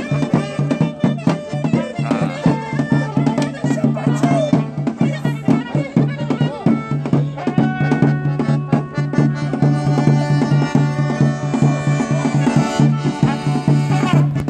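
Small street band playing lively traditional folk music. A clarinet carries a wavering, ornamented melody over an accordion and a large drum beaten with a stick, with a steady low note underneath.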